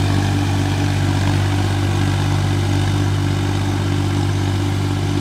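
Tractor engine running at a steady speed, a constant low drone, as the tractor puddles a flooded paddy field.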